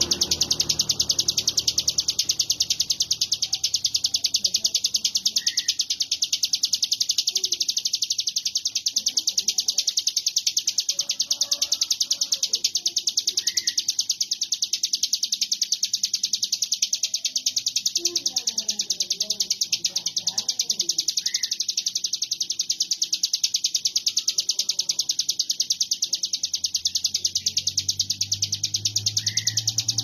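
Hill prinia (ciblek gunung) singing a continuous, high, rapid buzzing trill without a break, the 'konslet' style of song. Faint voices can be heard underneath.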